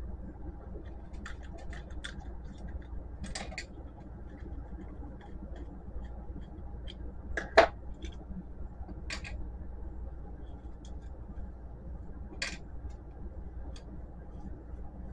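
Scattered clicks and taps from a small printer circuit board and its plastic frame being handled, with one sharper knock about halfway through, over a steady low hum.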